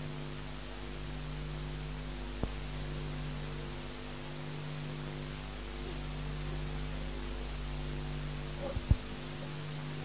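Steady electrical mains hum over an even hiss, with a small click about two and a half seconds in and a sharper, louder click near the end.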